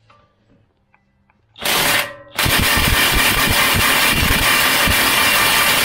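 DeWalt 20V XR cordless impact wrench hammering on a 31 mm front hub nut to break it loose: a short burst about a second and a half in, then a long unbroken run of rapid hammering.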